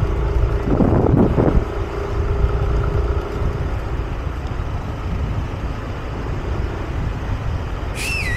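Riding a Yamaha motor scooter: a steady low rumble of the running engine and the ride, with a faint steady hum for the first few seconds and a brief louder rush about a second in. A short high wavering sound comes near the end.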